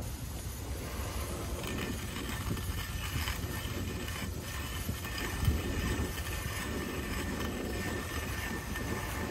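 Hand-cranked coffee grinder grinding beans as its handle is turned, over a steady low rumble of wind on the microphone. A single dull knock comes about halfway through.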